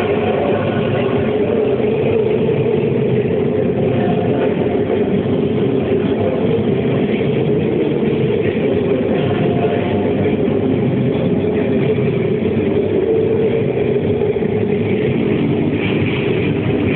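Loud saya caporales dance music, a dense, steady sound with sustained notes.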